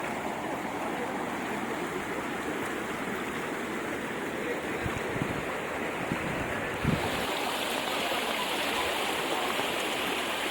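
Steady rush of flowing floodwater, with a single thump about seven seconds in, after which the rush sounds brighter and hissier.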